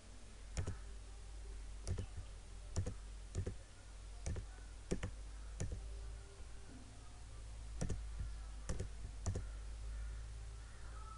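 Computer mouse buttons clicking: about ten sharp, separate clicks at uneven intervals, over a steady low hum.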